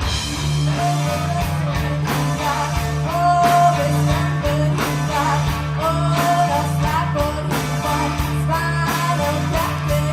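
Live rock band playing: a drum kit keeps a steady beat under a held bass line and electric guitar, with a lead melody line that bends in pitch.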